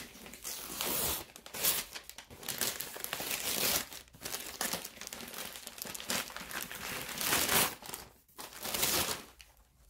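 Brown paper wrapping being ripped off a cardboard parcel by hand and crumpled, in a run of irregular tearing and crinkling bursts that die down near the end.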